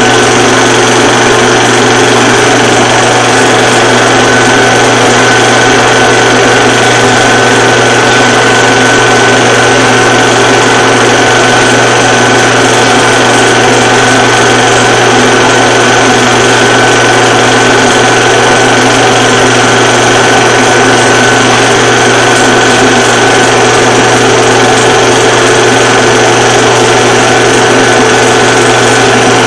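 Film projector running steadily: a loud, unchanging mechanical whir with a constant hum, heard on a transfer of old black-and-white film.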